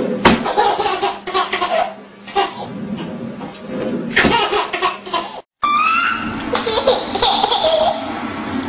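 Baby laughing in repeated fits, with a short break in the sound about five and a half seconds in before more high, gleeful squeals and giggles.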